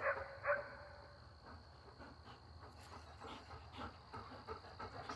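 Labrador retriever panting quietly, after two short, louder noises right at the start.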